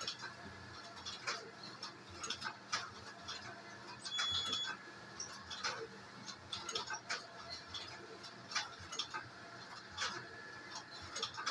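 Computerized flat knitting machine clicking and ticking irregularly, with a brief louder clatter and a short high tone about four seconds in.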